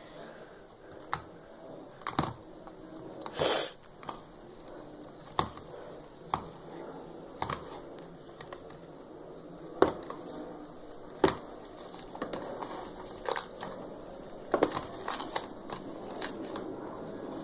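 Slime being squished and pressed by hand, giving irregular sharp pops and crackles, with a longer crackling burst a few seconds in.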